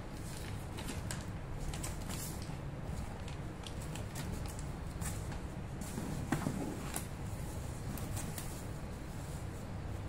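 Unpacking sounds: a cardboard box, a paper leaflet and plastic bubble wrap being handled, with scattered short crinkles and taps and a louder rustle about six seconds in, over a steady low hum.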